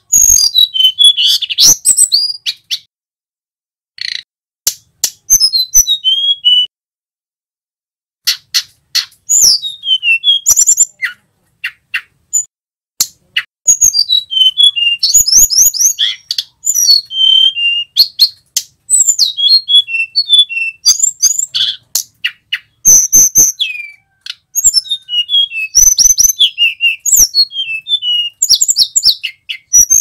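Male hill blue flycatcher (tledekan gunung / sulingan) singing: loud, high, clear whistled phrases of quick sliding notes, given in bursts with short pauses, with sharp clicks between some phrases.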